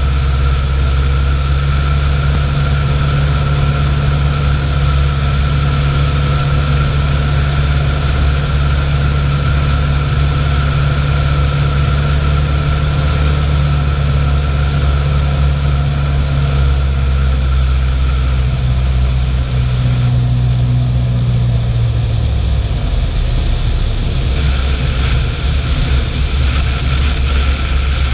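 Piper Pacer's piston engine and propeller droning steadily in flight, with wind rush on the outside-mounted camera. About twenty-two seconds in the engine note drops lower as power is pulled back for the landing approach.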